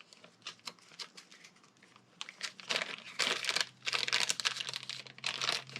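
Crinkling of plastic packaging and quick small clicks as new engine parts are handled, sparse at first and dense through the second half.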